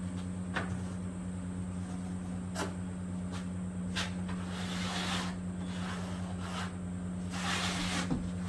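A few sharp clicks and two short scrapes of plastering tools working jointing compound for taping plasterboard joints, over a steady low hum.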